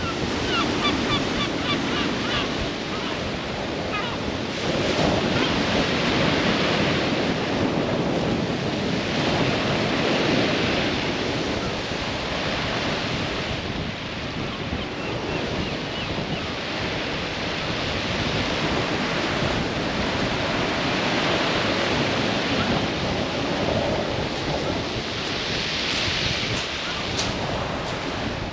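Sea waves breaking and washing on the beach, the surf swelling and easing every few seconds, with wind buffeting the microphone.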